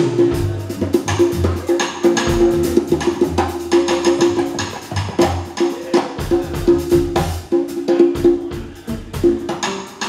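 Live acoustic band playing: strummed acoustic guitars and an electric guitar over hand drums, with sharp percussive strikes coming fast and steadily throughout.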